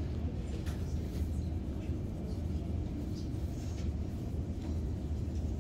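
Steady low rumble of classroom room noise, with a few faint scratches and rustles of markers on paper as students colour.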